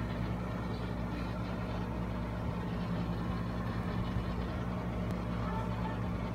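Steady low hum of a running motor, even and unbroken.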